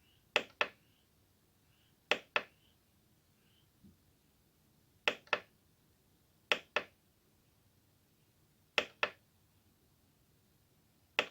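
Front-panel buttons of a Korg N264 keyboard being pressed, six times at uneven intervals of one to two seconds, each press a quick pair of sharp clicks, with near silence between.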